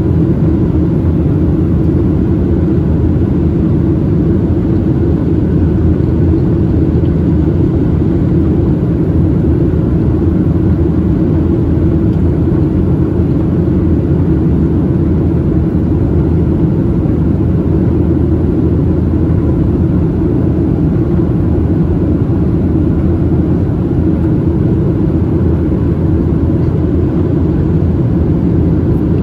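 Steady, deep roar of a Boeing 737-700's CFM56-7B engines and rushing air, heard inside the cabin during the climb.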